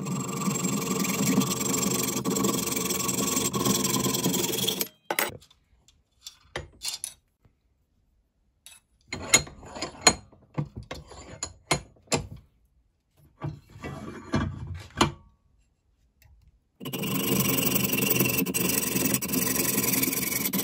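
Hacksaw cutting through a stainless steel bolt clamped in a bench vise, a steady rasping run of strokes for about five seconds. A few seconds later come scattered clicks and knocks as the bolt is handled and reset in the vise jaws, then the sawing starts again near the end.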